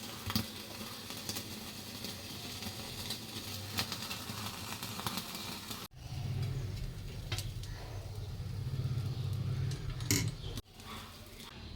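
Gas stove burner flame running, with a few sharp clicks from metal tongs as chicken kebab pieces are charred directly over the flame. The sound changes abruptly twice, with a deeper rumble in the middle part.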